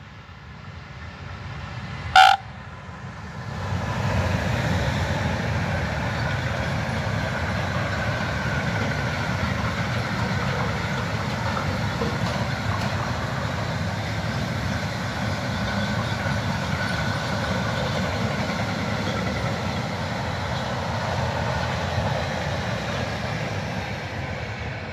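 A locomotive horn sounds one short blast about two seconds in. Then a long freight train of double-deck car-transporter wagons passes close by, with a steady rumble of wheels rolling on the rails.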